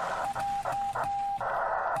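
Morse code from a Yaesu FT-891 transceiver: a steady single-pitch beep keyed on and off in short and long elements. The radio's filtered band hiss fills the gaps, and a longer stretch of hiss comes near the end.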